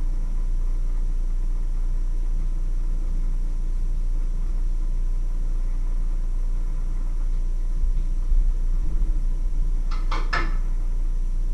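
A steady low hum, with a few soft thumps about eight seconds in and a quick pair of sharp clinks about ten seconds in as a cooking pot on the electric stove is handled.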